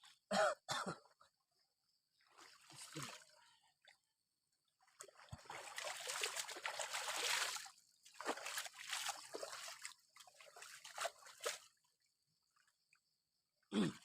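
Hands scooping and splashing river water to wash the face. The splashing comes in several irregular bursts, the longest lasting about three seconds in the middle.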